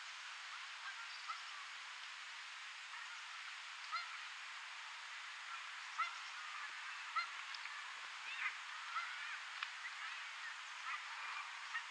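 Waterfowl calling at a distance, with short, repeated calls that grow busier about halfway through, over a steady background hiss.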